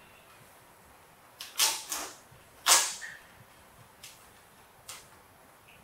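Hard plastic toy parts knocking and clattering as a baby monkey handles a toy truck's plastic tray and wheels: about six sharp knocks, the loudest near the middle.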